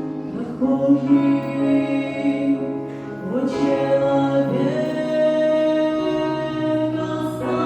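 A slow Christian worship song being sung, with long held notes that change pitch every second or two.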